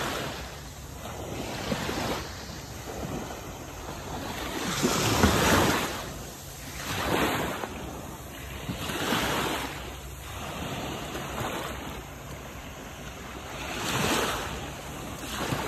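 Small waves washing in at the edge of a beach, the wash swelling and ebbing every couple of seconds, loudest about five seconds in. Wind buffets the microphone.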